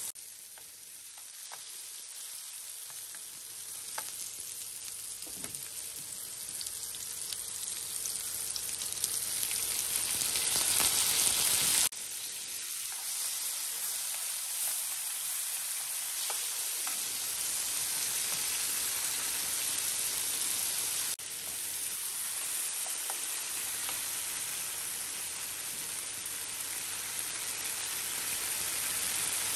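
Zucchini strips sizzling in hot oil in a nonstick frying pan, a steady hiss with small scattered pops. The sizzle grows louder over the first twelve seconds, then drops suddenly, and drops once more a little later.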